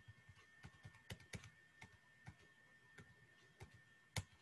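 Faint, irregular clicking of computer keys, a few clicks a second, with one louder click near the end. A faint, steady, high-pitched tone runs underneath.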